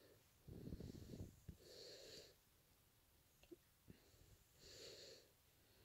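Near silence: quiet breathing of someone at close work, two soft breaths a few seconds apart, with a low rustle of handled cloth about a second in and two faint ticks near the middle.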